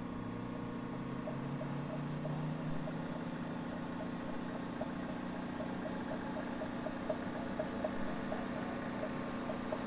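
Comet milling machine's electric motor started in reverse from its drum switch, its hum rising in pitch over the first couple of seconds as it spins up, then running steadily with a light ticking two or three times a second, over the steady hum of the running phase converter.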